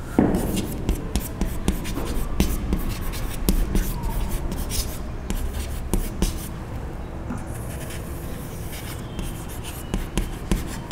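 Chalk writing on a chalkboard: irregular scratching strokes and sharp little taps as words are written out by hand.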